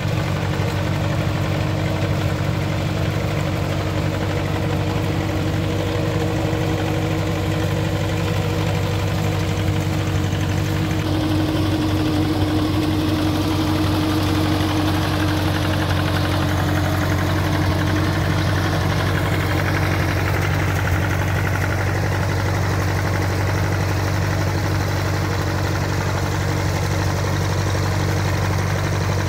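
An Allis-Chalmers G tractor's small four-cylinder gasoline engine running steadily at low revs.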